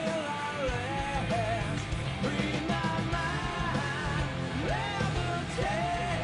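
Live hard rock band playing, with electric guitar, bass and drums under a male lead vocal sung into a microphone.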